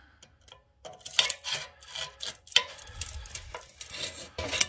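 Steel pry bar scraping and clinking against an exhaust pipe flange as it levers the unbolted joint apart. After a near-quiet first second come rasping metal scrapes with a few sharp clinks.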